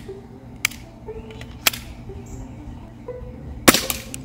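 VFC Glock 18 gas blowback airsoft pistol firing: two single sharp shots about a second apart, then a quick, louder cluster of shots near the end, over background music.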